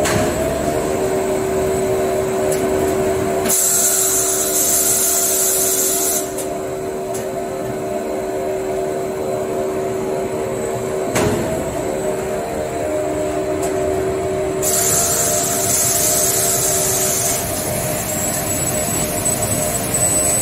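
Toilet paper and kitchen towel roll production line (log rewinder and log accumulator) running, a steady mechanical hum with several held tones. Two spells of loud hissing, each about three seconds, start about 3.5 s in and again about 14.5 s in, and sharp knocks come at the start and about 11 seconds in.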